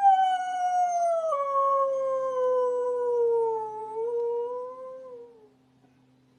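A dog howling: one long howl that slides down in pitch, lifts slightly near the end and stops about five and a half seconds in.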